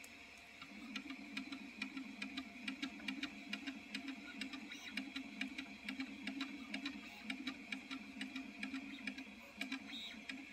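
Artillery Sidewinder X2 3D printer printing a PLA part, quietly: a wavering low hum and a steady high whine, with rapid irregular ticking as the print head moves.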